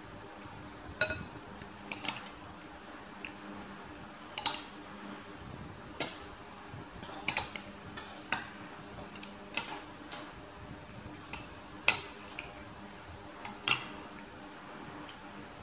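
Metal fork and spoon clinking against a bowl while noodle soup is eaten: irregular short clinks every second or so, the loudest about a second in with a brief ring.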